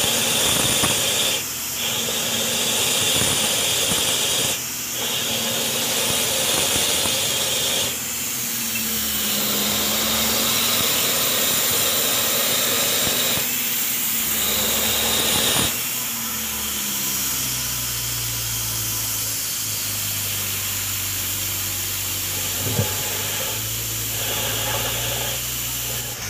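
Water gushing out of a broken sewer service pipe and splashing into the flooded excavation, a steady hiss. The line is being flushed with a hose to clear a blockage of hardened grease and waste.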